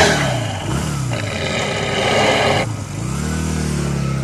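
Motorcycle engine revving as an intro sound effect. It starts on a loud hit, runs under a hiss that cuts off suddenly about two and a half seconds in, and then the engine note swells up and eases back.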